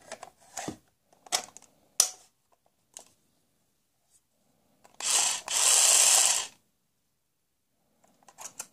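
Hard plastic clicks and knocks as a battery pack is snapped onto a toy Black & Decker cordless drill. About five seconds in, the toy drill runs in a short burst and then for about a second more.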